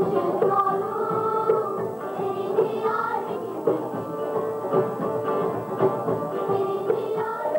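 Folk music played by a bağlama (saz) ensemble, plucked long-necked lutes over a steady held note, with a choir singing along.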